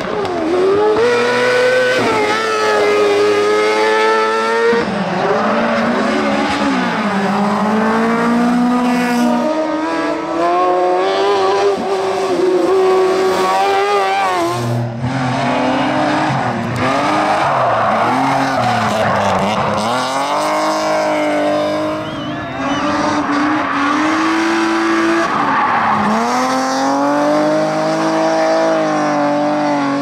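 Several race cars in turn, among them a Ford Fiesta rally car and a BMW E36, running hard uphill. Their engines rev high, the pitch climbing and dropping with each gear change and lift, with tyres squealing at times.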